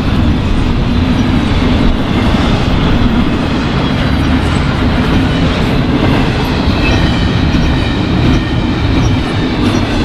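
Double-stack intermodal freight cars loaded with shipping containers rolling past at close range: a loud, steady rumble and rattle of steel wheels on the rails.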